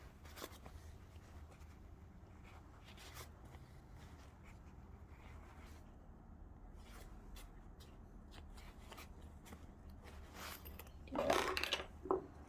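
Hands handling a school bag's fabric and zipper: faint rustling and small clicks, with a louder rustle near the end.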